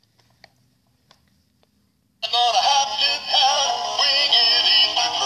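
Battery-powered animated toy dog playing its built-in song: a synthetic-sounding singing voice over music from a small speaker, starting suddenly about two seconds in after a few faint clicks.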